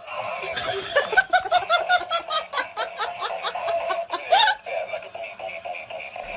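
A person laughing in a quick run of short ha-ha pulses, about four a second, lasting a few seconds.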